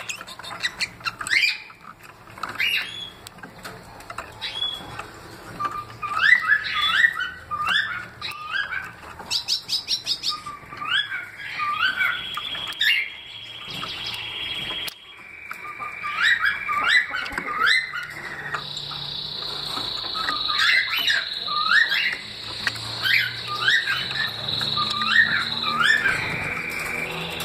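Bengalese finches (society finches) chirping and singing in a cage: runs of short, quick, rising notes repeated in series, with a high steady whistle-like tone held underneath for several seconds in the second half.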